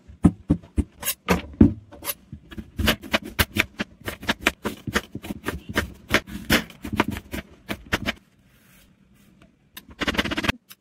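A kitchen knife slicing an apple on a hard white surface: a quick run of crisp cuts, several a second, each ending in a tap of the blade. A short gap follows, then a brief softer cut through a peeled banana near the end.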